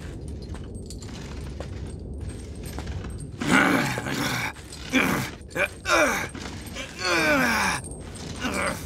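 A boy's strained groans and gasps, several cries falling in pitch from about three and a half seconds in, as he hauls a heavy stone box by a chain. Before them, a low steady rumble.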